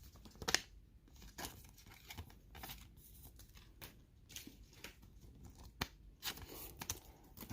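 Pokémon trading cards being handled: faint, scattered soft clicks and sliding rustles as cards are flicked through and set down.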